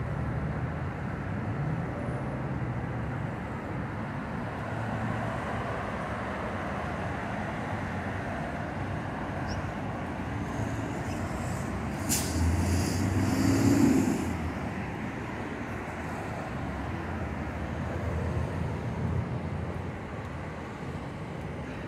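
Steady road traffic noise from passing cars, with a louder vehicle going by about twelve seconds in, marked by a sharp click and a short hiss.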